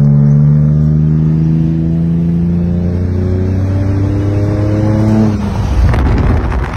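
Holden VE SV6 Commodore's 3.6-litre V6 with its mufflers removed, heard from inside the cabin accelerating, its note rising steadily through a gear. About five seconds in the engine note cuts off and gives way to a rough, crackly rushing noise.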